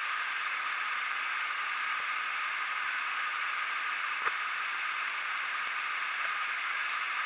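Steady rush of falling water from a waterfall, an even hiss with a single short click about four seconds in.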